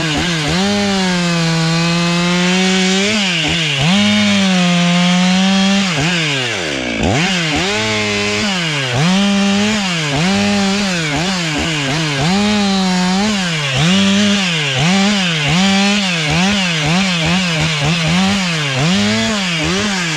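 Stihl MS 500i two-stroke chainsaw cutting branches, run at high revs. Its pitch drops under load and picks up again, with one deep drop about seven seconds in and quick dips about once a second through the second half.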